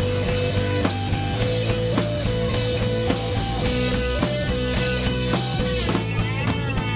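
Live rock band playing an instrumental passage: electric guitar holding ringing notes over a drum kit beating steadily.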